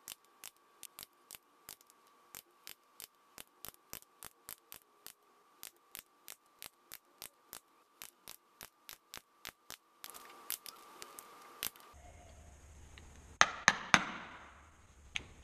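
Hammer tapping an awl through leather to punch stitch holes, as quick, evenly spaced sharp taps at about four a second. Near the end come a few louder single hammer blows.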